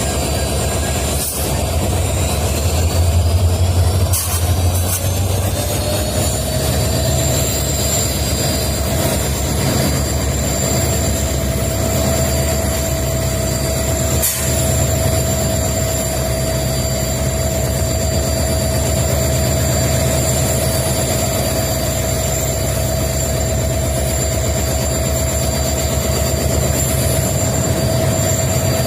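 EMD WDG4 diesel-electric locomotive's 16-cylinder two-stroke diesel engine running with a low rumble. A few seconds in, a whine rises in pitch and then holds as a steady high hum over the engine. A few short clicks are heard.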